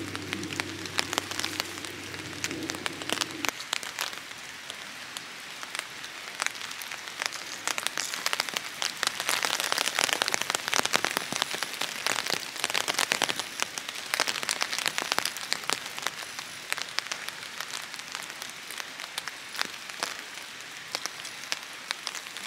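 Steady rain falling, with a dense, irregular ticking of drops striking close by over a soft hiss. A low hum is heard for the first few seconds and then stops.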